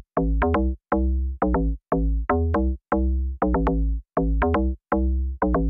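Electronic background music with a steady beat: short, chopped chords over a deep bass, about two a second, with brief silent gaps between them.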